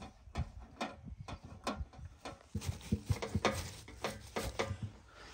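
Fresh green leaves and stems rustling and crackling as a hand packs them down into a metal tin, a run of quick snaps and crackles that grows denser in the second half.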